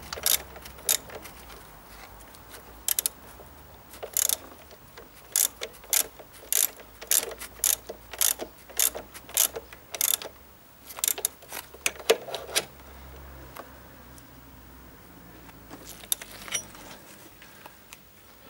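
Ratchet wrench clicking in short irregular runs as a mounting bolt is tightened, with the clicks dying away near the end.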